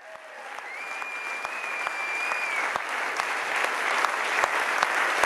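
Concert audience applauding, the clapping fading in from silence and growing louder. Someone whistles once, a high held whistle of about two seconds, near the start.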